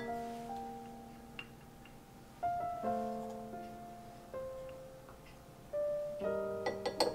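Soft background piano music: slow single notes and chords that ring and fade, with a few faint clicks near the end.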